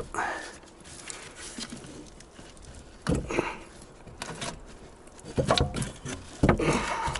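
Irregular knocks, clunks and scrapes of metal parts being handled as a Hyundai Accent's rear strut assembly is worked out of the suspension, with louder clusters about three seconds in and near the end.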